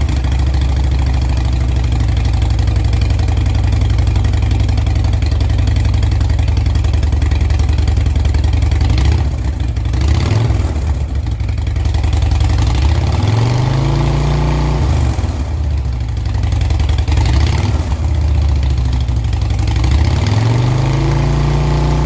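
2006 Harley-Davidson Dyna Wide Glide's fuel-injected Twin Cam 88 V-twin running through its stock mufflers. It idles steadily for about nine seconds, then is blipped once briefly and revved twice more, each rev rising and falling, near the middle and near the end.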